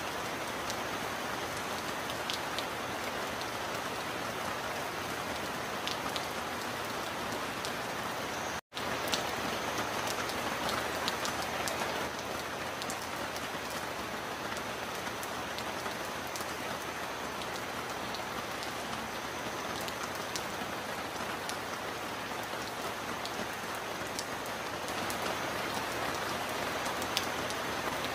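Heavy rain falling steadily, with a few sharper drop ticks. The sound cuts out completely for an instant about a third of the way through.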